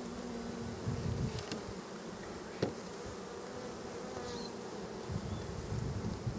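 A mass of honey bees buzzing around an opened, crowded hive: a steady, even hum. A single sharp click comes about two and a half seconds in, and low rumbles come and go around it.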